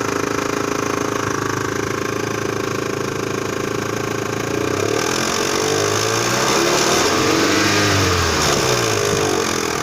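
Great Wall Hover's 4G64S4M four-cylinder engine running with a knock, revved once from about halfway through and dropping back to idle near the end. The knock comes from a slackened timing belt roller and a timing belt tensioner rod rattling.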